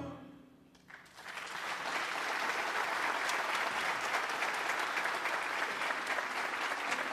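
The last note of a choir's song dies away, and about a second in an audience breaks into steady applause that carries on.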